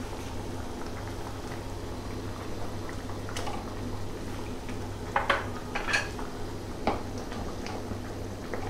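Thick spinach purée bubbling in a steel pan on the stove, a handful of wet plops as large bubbles burst, about three seconds in and again between five and seven seconds in, over a steady low hum.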